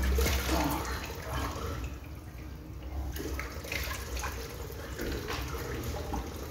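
Water running from a tap into a sink and splashing as a man washes his face with his hands, with irregular splashes and drips.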